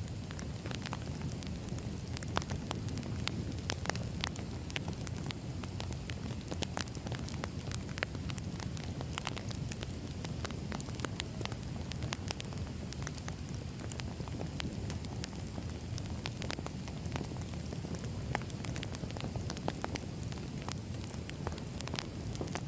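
Crackling wood fire: steady low rumble of burning logs with frequent irregular sharp pops and snaps.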